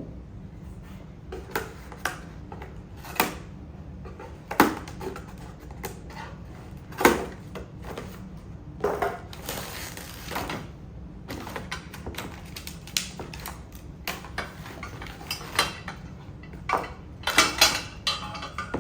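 Garden cart parts being unpacked and handled: irregular knocks and clatter as pieces are picked up and set down, with a couple of seconds of rustling packaging about nine seconds in and a quick run of clatter near the end.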